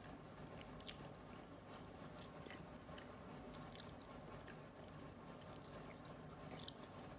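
Faint eating sounds, a man chewing and picking at rice with his fingers on a plate, with a few small clicks over quiet room tone.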